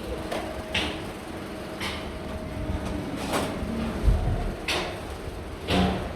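A series of irregular knocks and short scrapes, about six in all, with one heavier low thump about four seconds in, over a faint steady hum.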